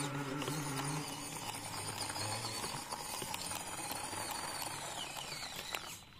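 A 1/24-scale FMS FCX24 Power Wagon RC crawler driving: its small electric motor and gears whining over a steady clatter of ticks from the drivetrain and tyres on rough ground. The whine dips and rises in pitch near the end.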